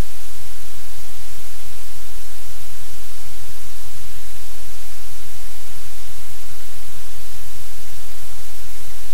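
Loud, steady static hiss that covers every pitch evenly, with a low hum beneath it and no change throughout.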